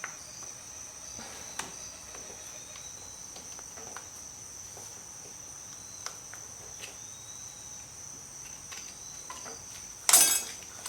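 Faint scattered clicks and taps of hand tools working on a wheel hub, with a steady high-pitched tone underneath. About ten seconds in comes one short, loud metallic snap and clatter as the hub's snap retaining ring comes free.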